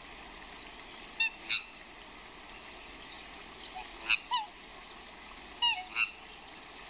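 Swans honking: three pairs of short, loud, nasal calls a few seconds apart, over a steady background hiss.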